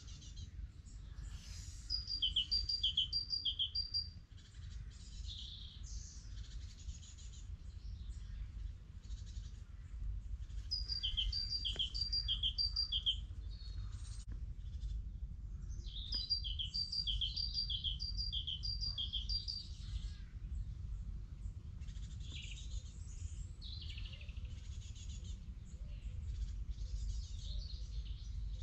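A small woodland songbird singing a rapid run of repeated two-note phrases, a higher note then a lower one, four or five times over. The song comes three times, a few seconds apart.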